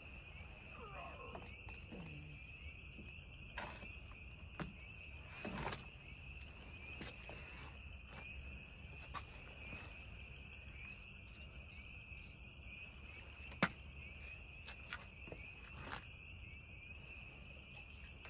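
Crickets chirring steadily in one high, even band, with scattered light clicks and knocks from tools and engine parts being handled. The sharpest click comes about two-thirds of the way through.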